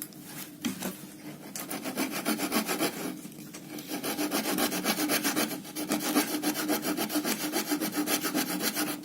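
Short folding saw blade of a multitool sawing through a piece of wood with rapid back-and-forth strokes, pausing briefly twice. The blade is small, so the cut goes slowly.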